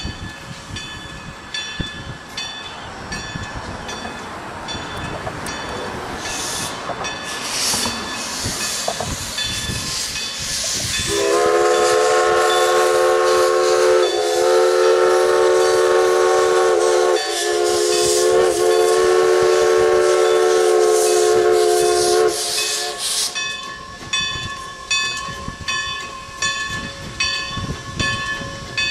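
Everett Railroad No. 11, a 2-6-0 Mogul steam locomotive, pulling out with steam hissing and its bell ringing steadily. About eleven seconds in, its multi-note steam whistle sounds loudly for about eleven seconds, broken twice briefly, before the bell and the rolling train carry on.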